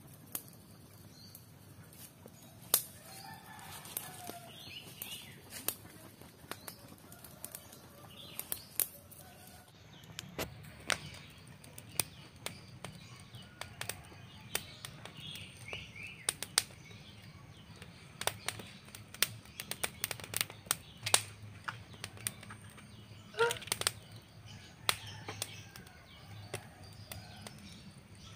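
Small wood fire crackling with sharp, irregular pops under a flat stone on which eggs are frying. Faint bird calls are heard in the background.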